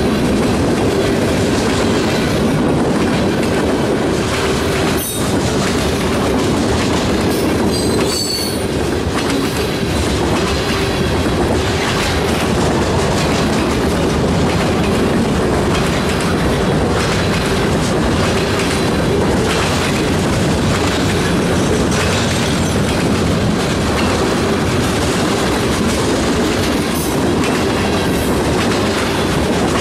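Cars of a Canadian National mixed freight train rolling past at close range: a steady, loud rumble with the wheels clattering over the rail joints. A steady squeal from the wheels runs underneath, with a brief higher squeal about eight seconds in.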